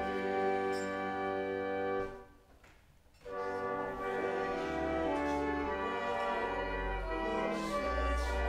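Church organ playing a hymn in slow sustained chords. About two seconds in it breaks off for roughly a second, then resumes.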